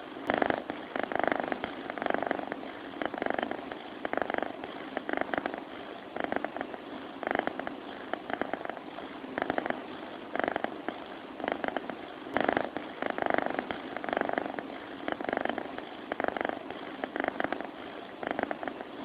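Sleeping cat's rattling purr, swelling and fading with its breathing about once a second.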